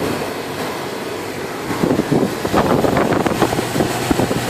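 2005 Bryant 5-ton air-conditioning condensing unit running in cooling mode, its fan giving a steady rush of air. About two seconds in it turns louder and choppy, with gusting air buffeting the microphone.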